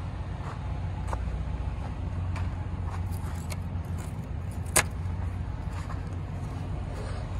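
Light metallic clicks from handling a semi-trailer's rear-door locking-bar handle, with one sharp clank nearly five seconds in. Under it runs a steady low engine rumble.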